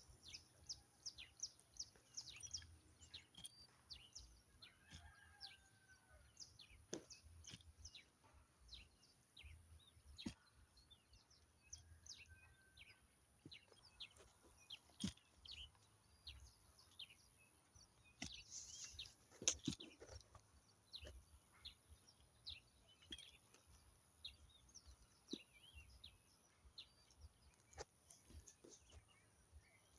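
Faint outdoor background of small birds chirping and calling on and off, with a couple of short whistled notes. A few sharp knocks now and then; the loudest comes about twenty seconds in.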